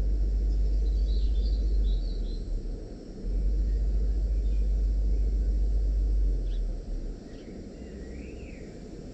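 Wind rumbling on the microphone in two long gusts that die down near the end, with birds chirping twice.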